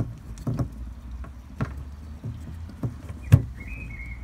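Irregular knocks and taps on a gas meter box, about five in all, with the loudest a little over three seconds in, over a low steady rumble.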